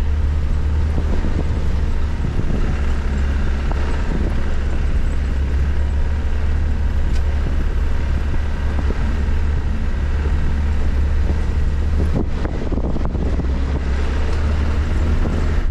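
Land Rover Discovery 1's 300Tdi four-cylinder turbodiesel running steadily as the vehicle is driven over a rough dirt trail: a continuous low drone with many small knocks and rattles, more of them about twelve seconds in.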